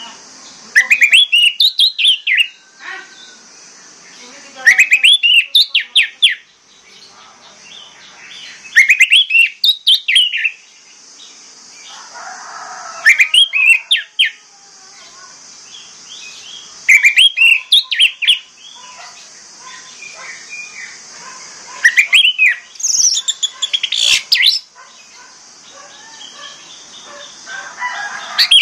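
Orange-headed thrush singing: loud phrases of quick rising and falling notes, one about every four seconds, six in all, over a steady high hiss.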